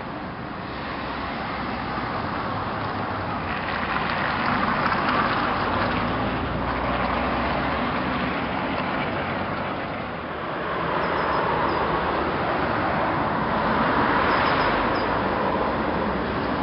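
Road traffic passing, a steady rush of tyres and engines that swells about four seconds in, dips briefly, and swells again near the end.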